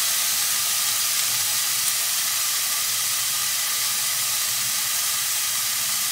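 Diced chicken sizzling steadily in a wok over a portable gas stove, the flame just turned down a fraction.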